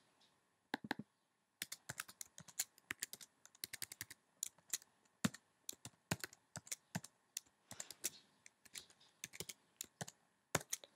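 Typing on a computer keyboard: irregular runs of key clicks with short pauses between them.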